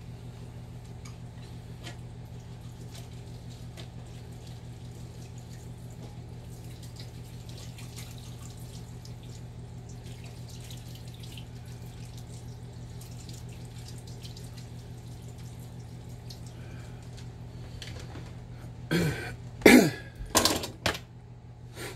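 Kitchen tap running faintly while hands are washed at the sink, over a steady low hum. A few loud knocks and clatters come near the end.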